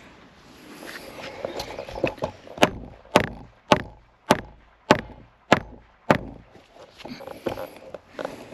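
Claw hammer striking a hard robinia (acacia) brace rail to drive it tight into the notch of a box strainer post. About seven sharp blows come at a steady pace, roughly two a second, starting a couple of seconds in, with a few lighter knocks before them.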